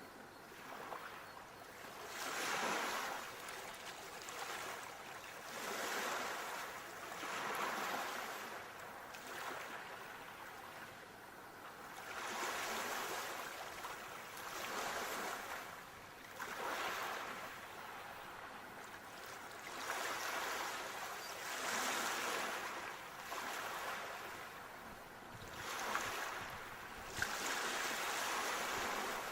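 Sea waves washing in, one swell of surf every two to three seconds, each building and falling away. Two brief clicks near the end.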